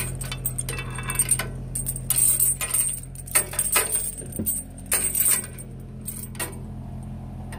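Steel lifting chain clinking and rattling as it is handled and wrapped around a steel frame rail, in irregular clusters of link clinks. A steady low hum runs underneath.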